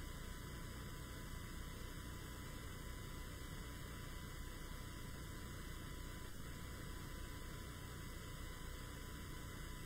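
Steady electrical mains hum with faint hiss from the open microphone and sound system, unchanging throughout.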